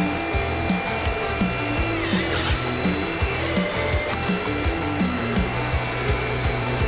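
Background music with a steady beat, over the whine of a small electric hydraulic pump in a model dump truck working its articulated steering; the whine dips and rises in pitch about two seconds in.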